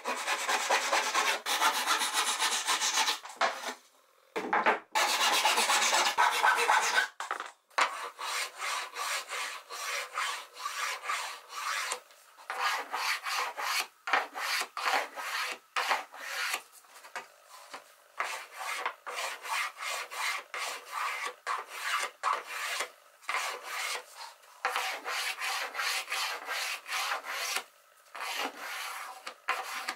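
A small hand saw cutting through a wooden runner strip in quick strokes, twice with a short break between. From about eight seconds in, a sanding block is rubbed back and forth along the wooden runner in short, rapid strokes, about two or three a second.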